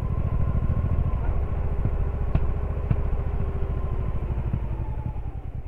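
Honda Shadow VT1100C's V-twin engine running with a steady low pulse while riding, heard from on board. There are two short sharp ticks about half a second apart a little over two seconds in, and the sound begins to fade near the end.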